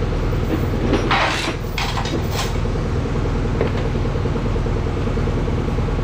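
An engine running steadily, with a few short hissing sounds between about one and two and a half seconds in.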